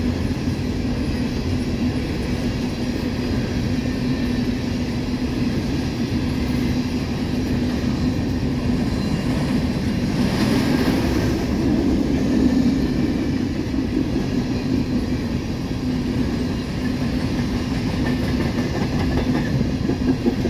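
Empty coal hopper cars rolling past at speed: a steady rolling rumble with a low drone. About halfway through there is a brief rise in hiss.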